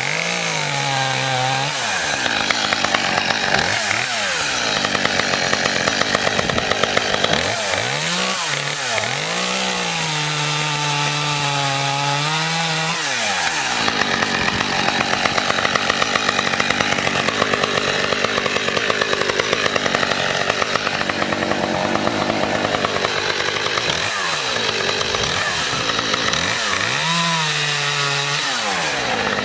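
Small two-stroke gasoline chainsaw running and revved up and down several times, held at high speed for a few seconds. Through the middle the clear engine note turns rougher as the chain cuts into wood.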